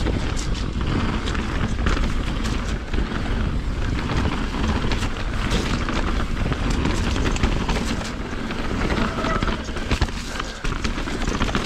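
2020 Rocky Mountain Instinct BC mountain bike riding down a trail: continuous tyre and trail noise with wind on the microphone, broken by frequent short rattles and knocks from the bike.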